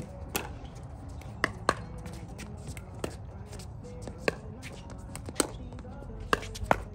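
Pickleball paddles hitting the hard plastic ball in a rally: about eight sharp pops at uneven intervals of roughly half a second to a second and a half.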